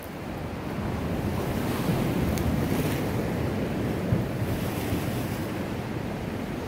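Ocean surf washing on a rocky shore, swelling about a second in, with wind buffeting the microphone and a brief thump about four seconds in.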